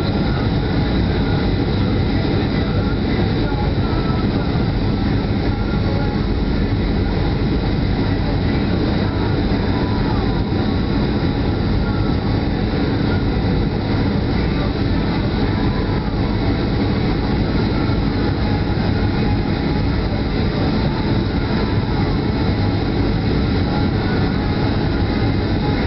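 Steady cabin noise of a Boeing 737-800 on approach, heard from a window seat beside the wing: the CFM56-7B turbofans' steady rush with a faint high whine above it.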